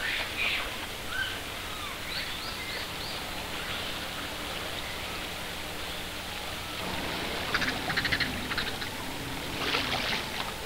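Steady outdoor hiss like running water, with a few short high animal calls early on, then bursts of rapid chirping about three quarters of the way in and again near the end.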